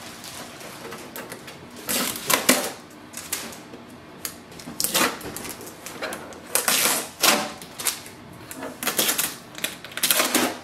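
Blue protective shipping tape being peeled off the plastic casing of a new Xerox B230 laser printer, in a series of short rips.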